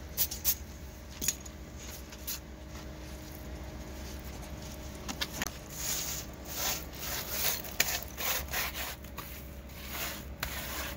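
Gloved hand rubbing and pressing wet cement mortar onto a wall: rough scraping strokes, sparse with a few light clicks at first, then a close run of them in the second half.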